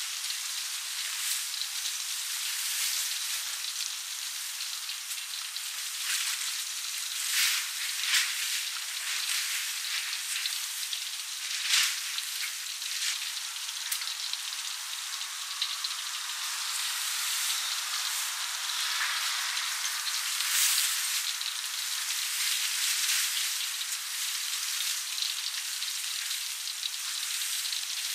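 Batter-coated duck pieces deep-frying in hot oil: a steady sizzle with a few louder pops and crackles.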